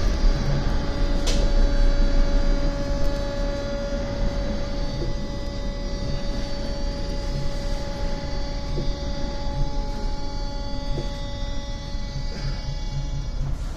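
Metro subway train's electric drive giving a steady whine of several stacked tones over a low wheel-and-rail rumble, heard from inside the car as the train slows along the station platform. A single sharp click about a second in.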